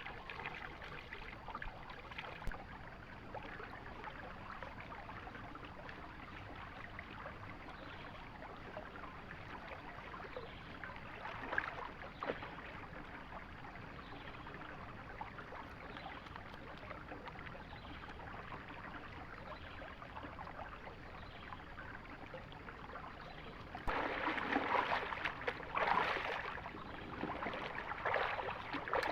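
River water running steadily, with louder, irregular splashing and sloshing in the last five seconds.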